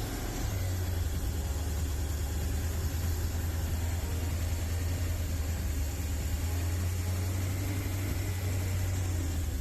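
1969 Dodge A108 van's engine idling steadily, a low, even running sound with no revving.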